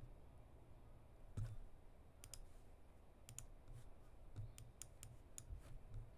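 Faint, irregular clicking of someone working a computer: about a dozen light clicks, the loudest about a second and a half in.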